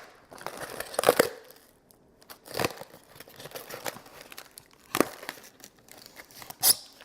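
Packaging being handled while a box is unpacked: crinkling and rustling with a few louder rips and scrapes about 1, 2.5, 5 and 6.5 seconds in.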